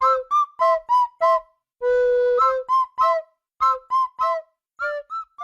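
A run of short, high-pitched whistle-like notes at changing pitches, about two to three a second, with one longer held note about two seconds in.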